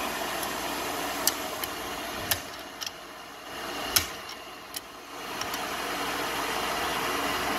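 Channel-lock pliers clicking and clinking on the metal lock nuts of a floor edger's pad adjustment, a scattering of sharp clicks with the loudest about four seconds in, over a steady mechanical whir.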